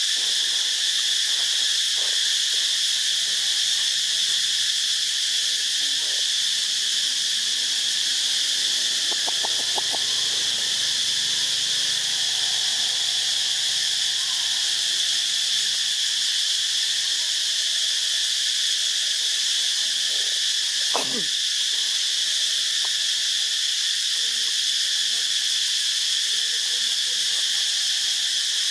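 Steady, unbroken high-pitched insect chorus.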